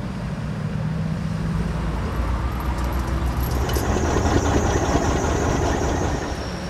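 Motor vehicle engines running steadily, with road traffic noise. A faint high steady whine joins about four seconds in.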